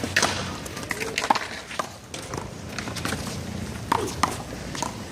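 One-wall handball rally: a small rubber handball slapped by hand and smacking off the concrete wall and court in a string of sharp, irregular hits.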